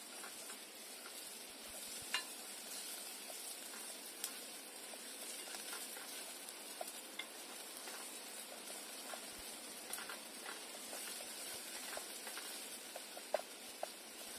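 Food frying and sizzling in oil in a pan, a steady hiss with scattered small clicks and pops.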